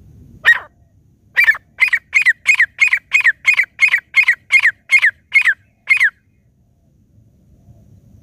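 Grey francolin calling loudly: one sharp call, then after a short pause a run of about thirteen sharp calls, roughly three a second, each note dropping in pitch, stopping a couple of seconds before the end.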